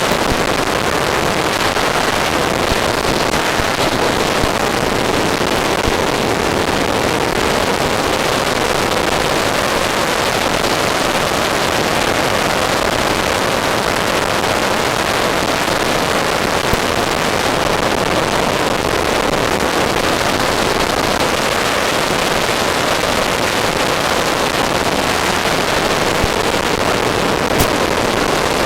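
Remote-control model F-14 Tomcat in flight, heard from its onboard FPV camera: a steady rush of wind and motor noise that holds level with no rise or fall.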